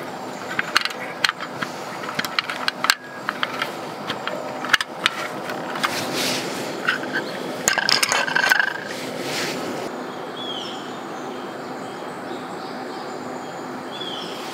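Sharp metallic clicks and knocks as a gas canister is fitted to a folding camp stove, then a run of scraping and clattering as an aluminium pan with a mesh strainer is handled and set down. Near the end come two short chirps.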